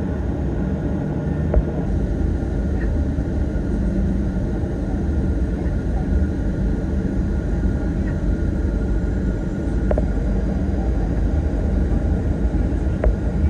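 Inside the cabin of a Boeing 737-800 taxiing: a steady rumble from its CFM56-7B engines at taxi power and the rolling airframe, with three brief knocks.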